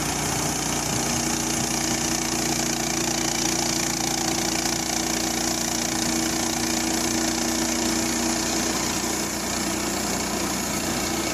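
Frontier OS31 portable band sawmill running steadily, its small gasoline engine at working speed as the band blade cuts through a log.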